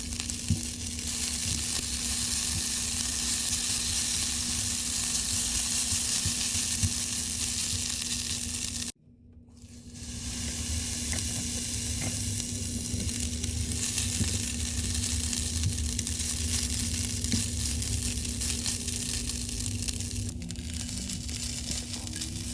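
Food sizzling as it fries in a pan, a steady hiss with a constant low hum underneath. It cuts out suddenly about nine seconds in, then fades back in and carries on.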